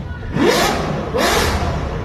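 Ferrari 812 Superfast's V12 through a Tneer titanium aftermarket exhaust, revved twice in quick succession, each rev rising sharply in pitch and then dropping back.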